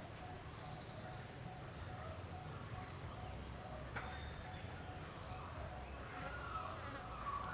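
Faint outdoor ambience: a thin, steady, high insect drone with a few short, high bird chirps.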